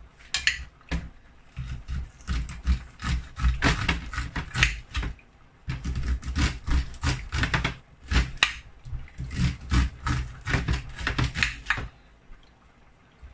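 A knife cutting kernels off an upright corn cob onto a plate: a fast run of crisp scraping cuts and clicks, with two short pauses, stopping shortly before the end.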